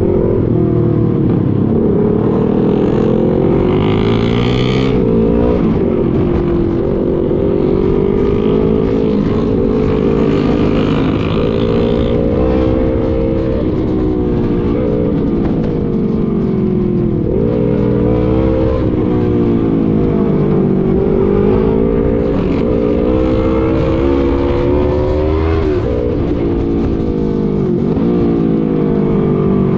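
Motorcycle engine running under way, its pitch climbing and dipping several times as the rider works the throttle and gears, over a steady rush of road noise.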